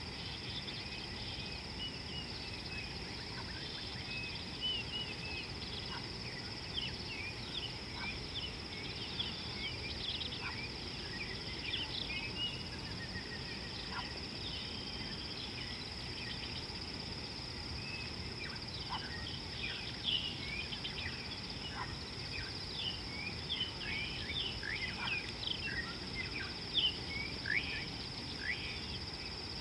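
Savanna bush ambience: a steady, high insect drone, with many short bird chirps and calls over it that get busier in the second half, over a low background hiss.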